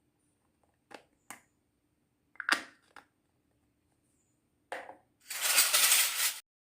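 Small plastic toy kitchen pieces being handled: a few light clicks and taps, a sharper knock in the middle, then about a second of crinkly rustling near the end.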